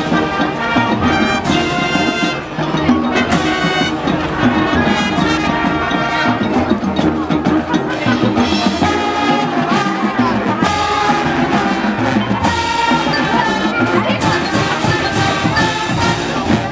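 Marching band playing, led by brass (trumpets and trombones) over percussion.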